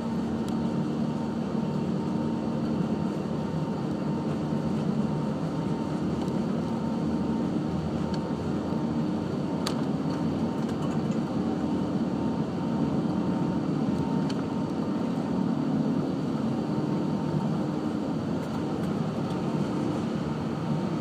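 Cabin noise of an Airbus A380 taxiing, heard from a window seat over the wing: the Rolls-Royce Trent 900 engines and the airframe make a steady low rumble with a faint held hum. A single light click comes about ten seconds in.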